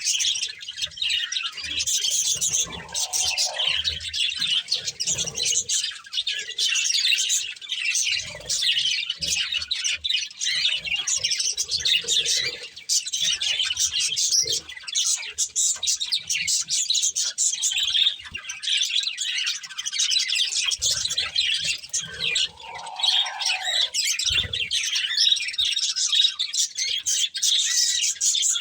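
Budgerigars chirping and chattering continuously in rapid, high-pitched twitters, with a few soft low knocks in between.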